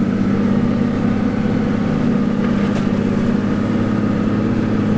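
Toyota Land Cruiser 60 Series engine running steadily under load, heard from inside the cab, as the vehicle is driven through loose sand.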